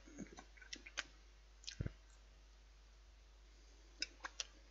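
Knife and fork clicking faintly against a plate: a few light clicks and a duller knock in the first two seconds, then three more clicks near the end.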